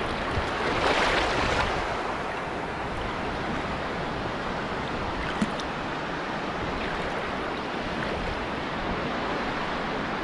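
Shallow surf washing around the legs over sand: a steady rush of water, a little stronger about a second in.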